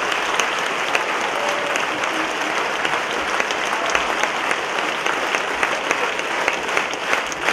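Large audience applauding steadily, many hands clapping at once.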